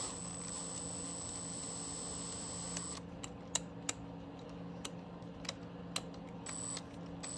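Scattered light clicks and taps of a drill and drill bit being handled, over a steady low hum. A thin high-pitched whine sounds for the first three seconds, stops, and returns briefly near the end.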